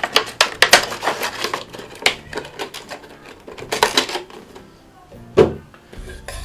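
Plastic toy packaging and small plastic accessories being handled: a quick run of crinkles and clicks, with a heavier knock about five seconds in.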